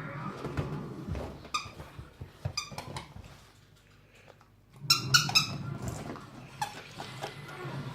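A dog chewing a squeaky toy, making short high squeaks in two quick clusters: one about a second and a half in, another about five seconds in, with a brief lull between.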